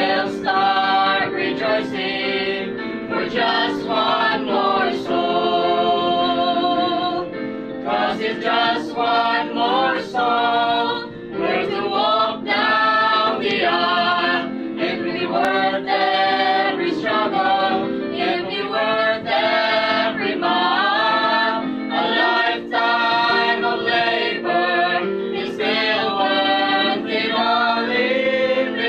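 A young men's vocal group singing a Christian gospel song in harmony, several voices moving together through sustained phrases.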